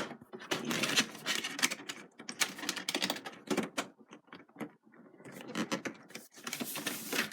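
Plastic packaging insert and box being handled: irregular clicks, taps and short rustles as the plastic tray is pressed back into place.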